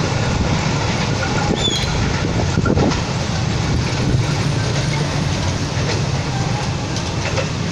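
KRL Commuter Line electric multiple-unit train running along the track away from the listener, a steady noise of wheels on rail.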